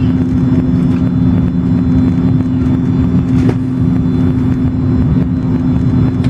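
Ferry's engines running with a steady, loud low drone and a constant hum, heard from inside the passenger cabin.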